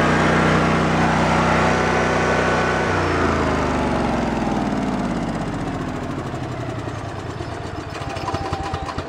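Dayton portable generator with a Honda GX620 20 hp V-twin engine, running steadily and then shut off about three seconds in. The pitch falls and the sound fades as the engine and alternator spin down over several seconds, with a few light ticks near the end.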